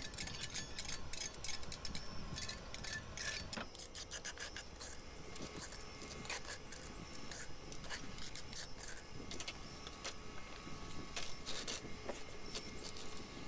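Rough hand scraping and brushing of rust off an old iron sickle blade: repeated rasping strokes with scattered clicks.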